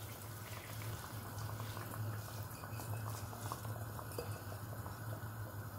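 Chicken stock boiling in a pot, bubbling with many small ticks and pops, as soaked rice is tipped in from a glass bowl; a steady low hum runs underneath.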